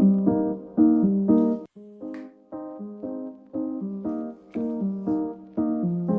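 Lofi background music: mellow piano chords struck in a steady rhythm, about two a second, with a brief pause just before two seconds in.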